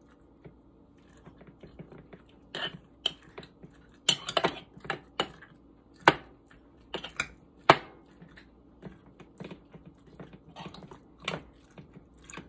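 Metal knife clinking and tapping against glass canning jars as raw chicken pieces are pushed down into them: irregular sharp knocks, a cluster of them a third of the way in.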